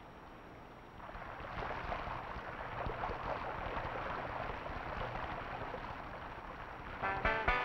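Mountain stream with water trickling and splashing over rocks, an even rush that swells about a second in. Plucked-string music comes in near the end.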